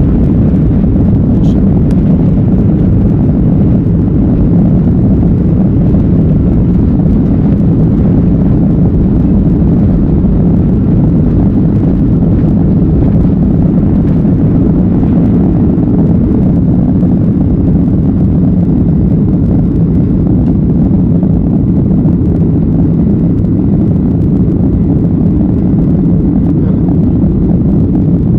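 Jet airliner's engines at takeoff thrust, heard inside the cabin as a steady loud low rumble through the takeoff roll and lift-off.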